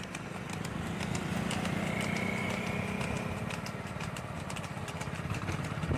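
Motorcycle engine running steadily at low speed, with the scattered clop of a buffalo's hooves on the asphalt and the rattle of the buffalo cart.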